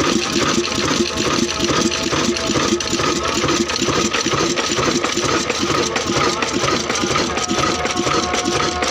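Old 22 HP Ruston Hornsby stationary diesel engine running with a steady beat.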